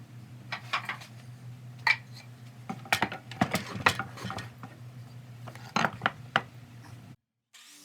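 Irregular light clinks and taps of hard objects being handled, over a faint steady low hum.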